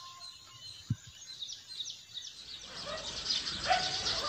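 Small birds chirping: a regular run of short, falling chirps, turning into a busier chatter of several birds after about three seconds. A single low thump about a second in.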